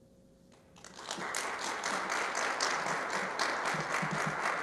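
Crowd applause starting about a second in: many hands clapping steadily together.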